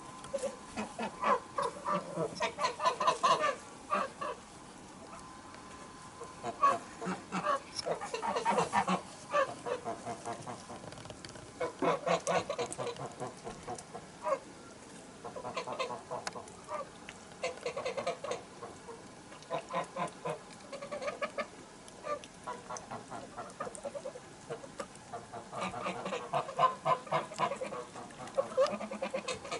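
Domestic white geese honking and cackling in bursts of rapid calls, with short pauses between the bursts.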